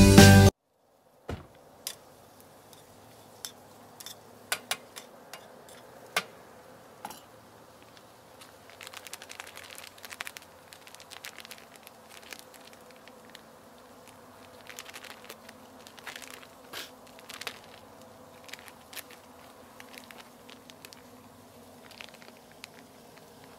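Food crackling quietly in a frying pan on a portable gas camp stove, with scattered sharp clicks and the crinkle of a package as food is tipped in, over a faint steady hum. A few seconds of music cut off just after the start.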